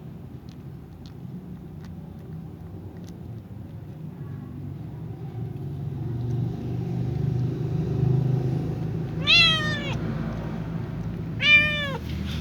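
Cat meowing twice near the end, two short calls about two seconds apart, each rising slightly and then falling in pitch. A low rumble swells underneath from about halfway through.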